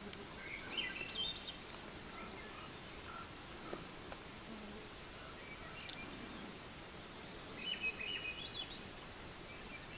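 A songbird singing two short phrases of stepped, rising high notes, about a second in and again near eight seconds, over a steady outdoor background hiss, with one sharp click near the middle.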